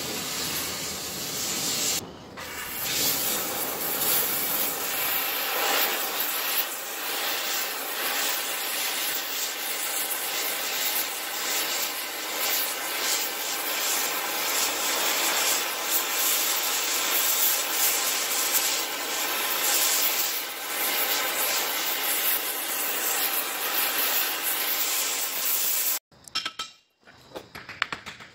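Oxy-fuel cutting torch hissing steadily as its flame cuts through a steel knife blank, with a short dip about two seconds in. It cuts off abruptly near the end, leaving faint clicks.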